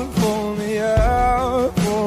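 Background music: long held melody notes with a slight waver over low drum hits about once a second.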